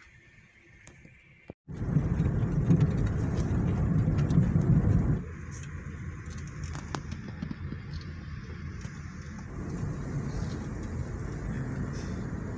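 A car's road rumble heard inside the cabin while driving: tyre and engine noise, faint at first, cutting out briefly about a second and a half in, then loud for a few seconds before dropping abruptly to a steadier, quieter rumble.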